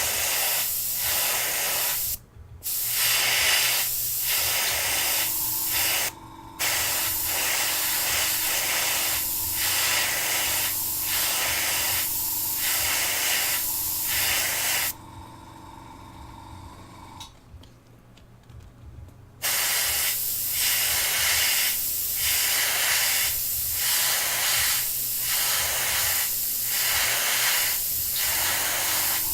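Paint spraying in repeated sweeping passes: a steady hiss that pulses about one and a half times a second. It breaks off briefly twice, then stops for about four seconds in the middle before starting again. A steady low hum runs underneath.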